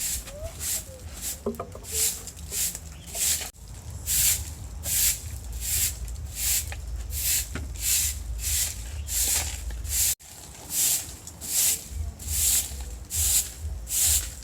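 Rhythmic scraping strokes, about two a second, each a short hissing rasp, over a low rumble. The sound breaks off twice and resumes, about three and a half seconds in and again about ten seconds in.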